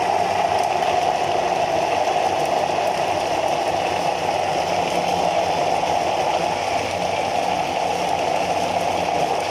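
Electric blender motor running steadily, grinding cooked dried figs and garlic in oil into a paste.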